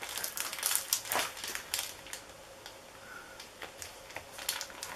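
Plastic vacuum-bag film crinkling and crackling as hands work it at the sealed end of a bagged composite tube, dense for the first two seconds, then only scattered soft ticks.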